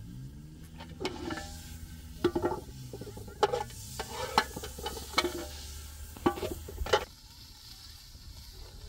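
Food sizzling in a pan while it is stirred, the spoon knocking and scraping against the pan about once a second until about seven seconds in.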